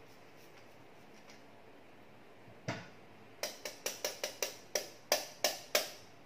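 Block of cheese grated on a flat metal hand grater. A single knock comes about two and a half seconds in, then a quick run of about eleven scraping strokes, roughly four a second.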